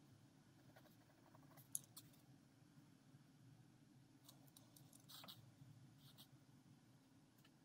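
Faint ballpoint pen strokes scratching on paper: a few short scratches, the longest about five seconds in, and one sharp click a little under two seconds in, over a low steady hum.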